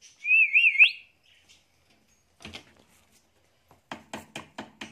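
Indian ringneck parakeet giving one loud warbling whistle that wavers up and down and climbs sharply at its end. Near the end comes a quick run of about six sharp clicks or taps.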